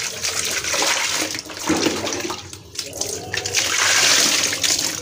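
Water poured from a plastic dipper splashing over a metal multi-cup baking mould to rinse off the soap suds. The splashing eases briefly about two and a half seconds in, then comes back stronger.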